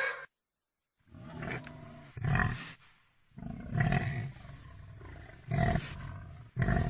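An animal gives a run of deep, low-pitched calls, each lasting a second or less with short gaps between, the loudest about halfway through. A louder, higher sound cuts off abruptly just after the start, followed by about a second of silence before the calls begin.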